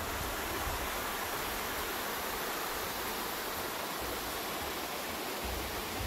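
Mountain stream running over broad flat bedrock slabs, a steady rushing of water.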